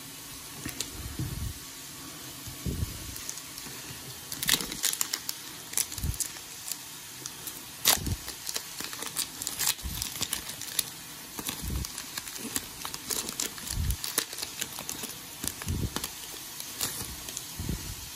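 Foil booster-pack wrapper crinkling and tearing as it is opened by hand, with many short crackles, the loudest about four and a half and eight seconds in, over a steady background hiss.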